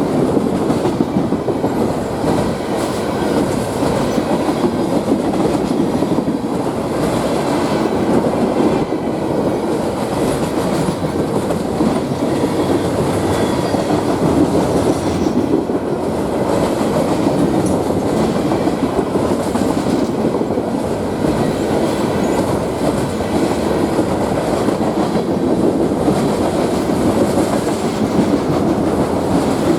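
Freight train cars rolling past, steel wheels clattering steadily over the rail joints.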